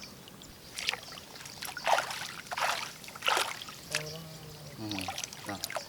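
Water splashing and sloshing in several irregular bursts, with two short bits of voice about four and five seconds in.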